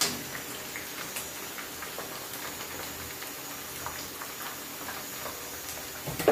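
Breadfruit slices deep-frying in hot vegetable oil: a steady sizzle with many small scattered pops. A sharp click at the start and a louder thump at the very end.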